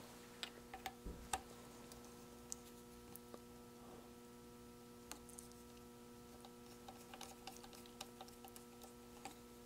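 Faint, scattered small clicks and taps of speaker leads being fitted into a small screw terminal on a circuit board, over a steady faint hum.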